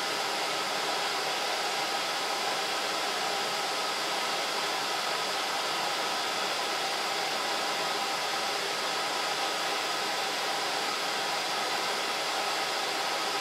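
Steady, even fan-like hiss with a few faint constant tones, unchanging throughout; no clinks or scrapes stand out above it.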